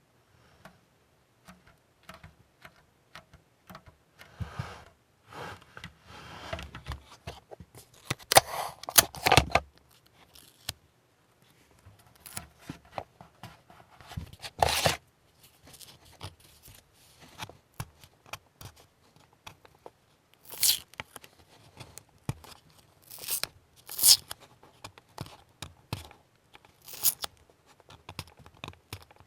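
Close handling sounds from work on a plastic scale model: scattered light clicks and scrapes, broken by several short tearing or rasping bursts, the loudest about nine seconds in.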